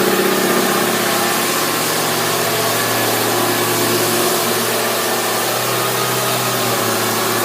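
Power sander running steadily on a fibreglass boat hull: a constant motor hum over an even hiss.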